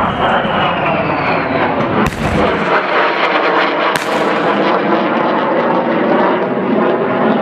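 Fighter jet flying overhead: a loud, steady engine roar, with a whine falling in pitch over the first couple of seconds as it passes.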